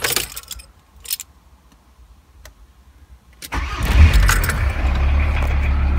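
A couple of faint clicks, then about three and a half seconds in a Volkswagen T4 van's engine is started from inside the cab and settles into a steady idle.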